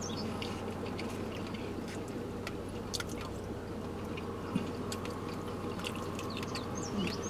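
Steady low hum inside a car cabin, with a few faint clicks and scrapes of a plastic spoon in a cup of soup as it is eaten.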